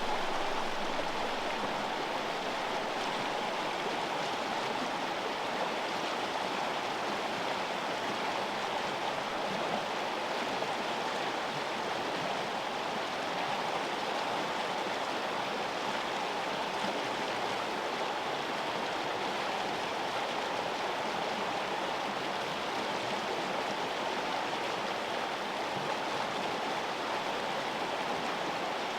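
River water flowing: a steady, even rush of running water that does not change.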